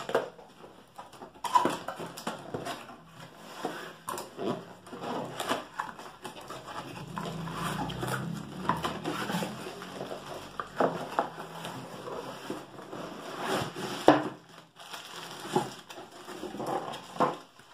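Cardboard box being opened and handled: flaps rustling and scraping, with irregular knocks and the crinkle of plastic wrap as the wrapped pans are slid out. One sharper knock comes about fourteen seconds in.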